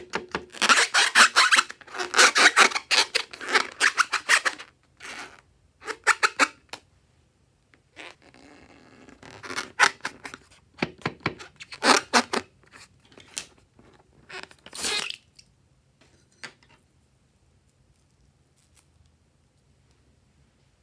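Hands rubbing and handling a filled rubber balloon, with a dense run of close rubbing and scraping sounds over the first few seconds. Then come scattered short handling sounds as the balloon is opened and emptied into a glass bowl. The last five seconds are nearly quiet.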